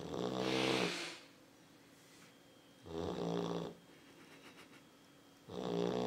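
Yellow Labrador retriever snoring in its sleep: three snores of about a second each, coming roughly every two and a half seconds.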